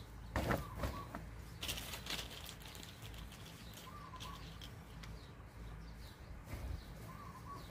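Mesh bag of mud-caked snails being lifted, set down and handled: the shells knock and rustle in two bursts within the first two seconds, then the mesh rustles more quietly as the bag is tied. A bird chirps faintly twice.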